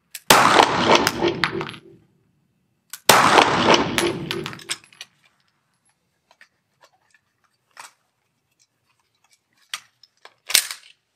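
Two pistol shots about three seconds apart, each followed by more than a second of ringing reverberation in the indoor range. Then faint metallic clicks as the pistol is handled, with a sharper click near the end as the magazine is changed.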